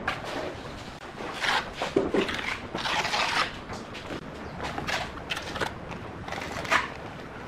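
Hand trowel spreading and smoothing a wet white coating over a concrete countertop: a series of irregular scraping strokes of the blade through the coat.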